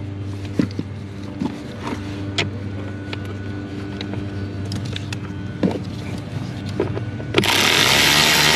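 Scattered clicks and knocks of parts being handled and fitted over a steady low hum. Near the end, a loud, even rushing noise starts and keeps going.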